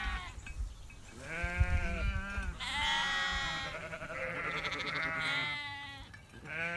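Sheep bleating: several long calls, some overlapping, from land-raised hair sheep.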